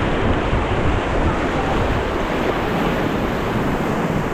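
Steady, loud rush of whitewater from a river rapid around a raft, with wind buffeting the microphone.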